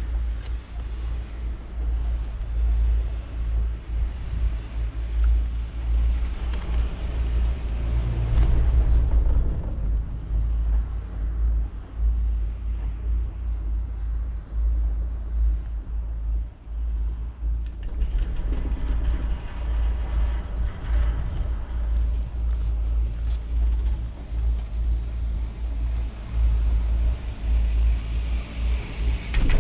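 Wind buffeting the microphone on a moving Leitner detachable six-pack chairlift: a heavy, gusting low rumble. Two louder swells of rattling rumble come about a quarter and two-thirds of the way through.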